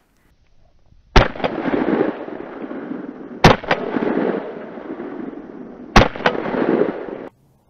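Three shots from an MP-155 semi-automatic shotgun, about two and a half seconds apart, each followed closely by a second sharp click. A rushing noise fills the gaps between the shots and stops abruptly near the end.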